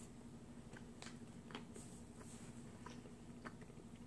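Near silence: faint mouth sounds of chewing a soft, sticky chewy candy, a few soft clicks over a steady low hum.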